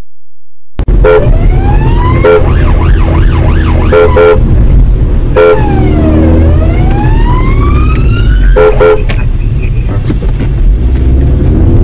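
Police car siren heard from inside the pursuing car, wailing up and down in long glides with several short blaring horn-like blasts between, over the car's engine and road rumble. It cuts in suddenly about a second in.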